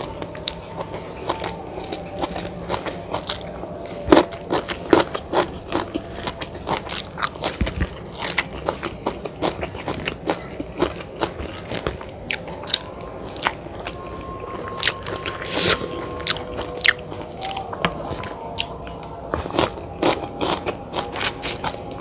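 Close-miked mukbang eating of mie ayam chicken noodles: chewing and biting with many short, sharp, irregular mouth clicks.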